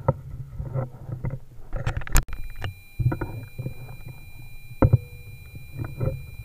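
Irregular knocks, clicks and rubbing from the air rifle and its scope-mounted camera being handled and moved, with one sharp click about two seconds in. Faint steady high tones come in right after that click.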